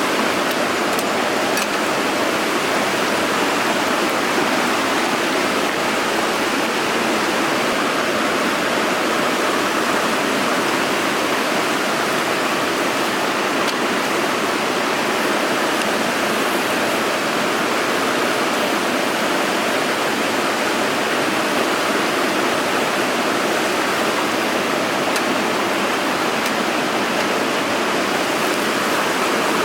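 Mountain stream rushing over rocks in a gorge: a loud, steady, unbroken rush of water.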